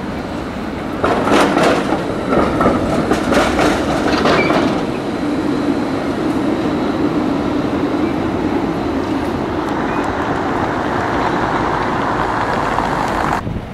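Articulated Helsinki tram rolling past on street track, its wheels knocking over rail joints and crossings in a quick cluster of clacks for a few seconds, then a steady running rumble. A hiss swells near the end and the sound cuts off suddenly.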